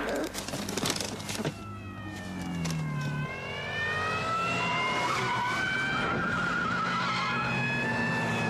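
Car tyres squealing in long gliding tones as a car takes a bend at speed, over the engine revving up and dropping back. The first second and a half holds a burst of sharp knocks and clatter.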